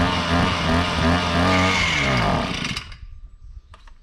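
Small engine of a KOSHIN EP-10P engine-powered sprayer running with its speed surging up and down. It then sags and stalls about two and a half seconds in. The engine will not keep running, which the owner puts down to fuel not getting through.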